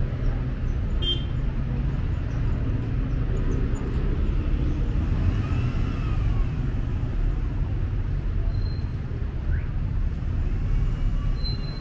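City street traffic noise: a steady low rumble of passing cars, with a short click about a second in.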